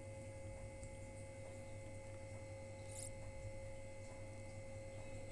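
Faint steady hum with a thin, unchanging high tone over it, and a brief faint hiss about three seconds in.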